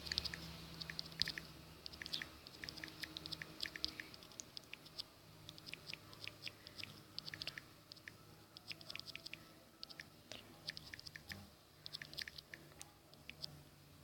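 Rapid irregular runs of light, identical clicks: a smartphone's touchscreen keyboard sounding as someone types a message, over a faint low hum.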